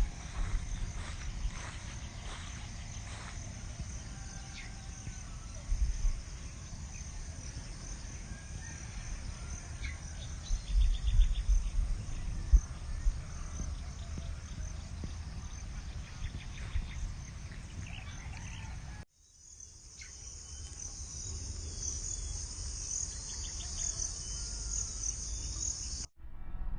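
Steady high-pitched insect chorus, typical of crickets, over a low rumble that swells now and then. The sound drops out for a moment about 19 seconds in and again near the end.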